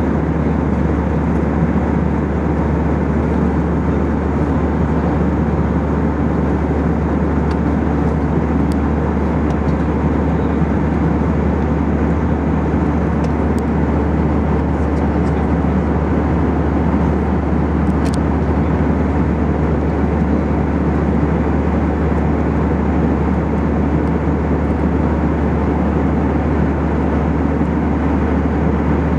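Steady in-flight cabin noise of an Airbus A319-111, heard inside the cabin: an even drone of its CFM56-5B5 jet engines and airflow over the fuselage, with a steady low hum underneath.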